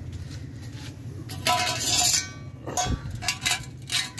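German shepherd puppies' muzzles knocking and pushing a steel food bowl across concrete as they eat. The bowl clatters and rings about a second and a half in and again near three seconds, then gives quick light clinks.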